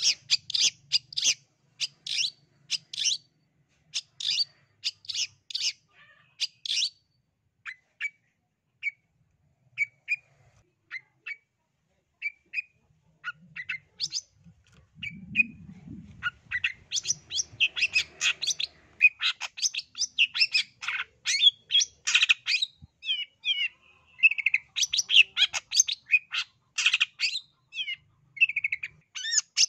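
Long-tailed shrike (cendet) singing: fast runs of sharp chattering notes, thinning to sparse single notes for several seconds in the middle, then picking up into dense, rapid chatter again for the last third.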